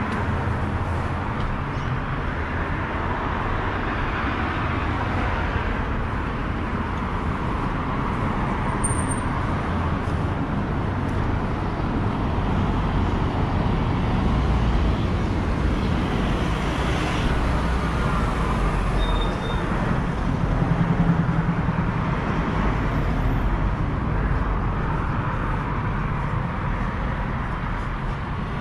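Busy main-road traffic: a steady rush of cars and heavier vehicles passing, with a low engine rumble that swells to its loudest about three quarters of the way through.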